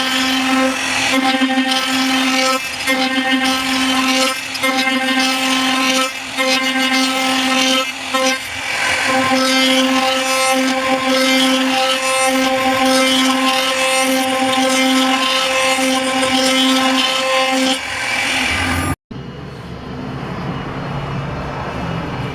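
Electric power tool motor running at a steady high-pitched whine, with brief dips in level as it is loaded against the wood. About three-quarters of the way through it cuts off suddenly, and a quieter, lower sound follows.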